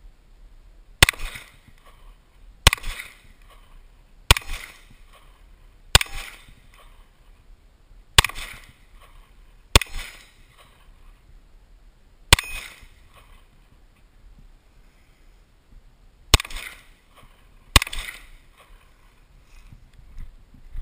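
Nine single shots from an M9 9mm pistol, fired about one and a half seconds apart with a pause of about four seconds before the last two. Each shot is sharp and trails off in a short echo.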